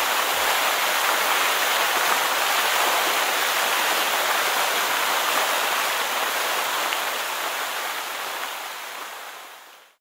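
Waterfall water rushing in a steady, even roar that fades out over the last two seconds.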